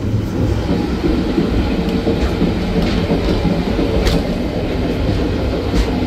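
Old museum train carriage running along the track: a loud, steady rumble and rattle with a few sharp clicks of the wheels over rail joints, heard at an open door between the coaches.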